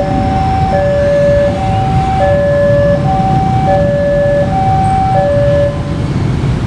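Railway level-crossing warning alarm sounding a two-tone electronic hi-lo tone, a low and a high tone taking turns about every three quarters of a second. It cuts off near the end, over a steady low rumble of motorcycle engines.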